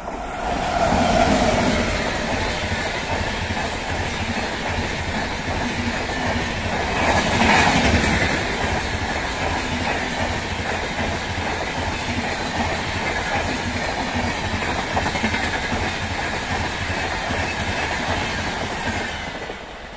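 Express train hauled by a WAP-7 electric locomotive, with LHB passenger coaches, passing at speed: a steady rolling rumble with wheels clattering over the rail joints. It is loudest around eight seconds in and fades near the end as the last coaches go by.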